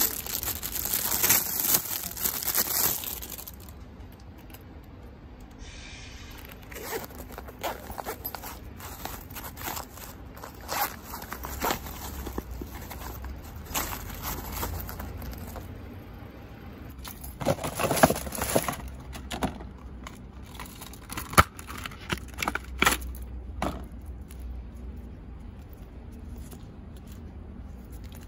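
Clear plastic wrapping crinkling and being torn off a small toy pouch, loudest and densest in the first three seconds. Then intermittent rustling and small clicks from handling the unwrapped pouch and its metal keychain clip.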